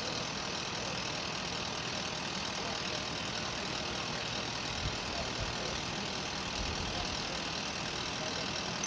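A vehicle engine idling steadily: a constant drone that does not change.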